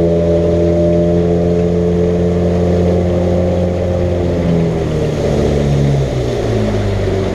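Small outboard motor pushing a canoe at full throttle, running steadily, then dropping in pitch as it slows about five seconds in.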